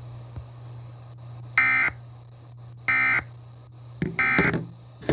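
Emergency Alert System end-of-message signal: three short bursts of digital data tone, each about a third of a second long and about 1.3 seconds apart, marking the end of the alert. A steady low mains hum runs underneath.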